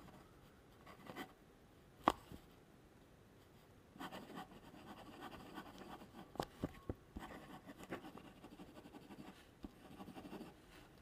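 Metal nib of a Classmate Octane fountain pen scribbling loops on paper: a soft, faint scratching, continuous from about four seconds in, with a few sharp ticks. A single sharp tap about two seconds in is the loudest sound. The nib writes smooth rather than scratchy.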